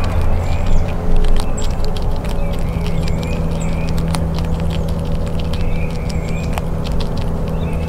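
Gray squirrel chewing peanuts close to the microphone: a rapid, irregular run of crisp crunching clicks. Under it runs a steady low mechanical hum.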